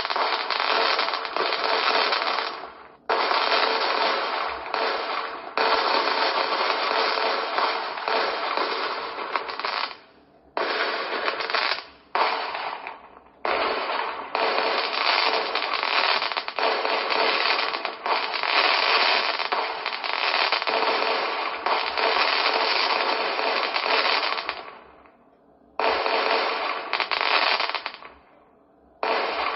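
Fireworks display: a dense, nearly continuous barrage of crackling bursts and bangs from exploding shells, breaking off briefly a few times before starting up again.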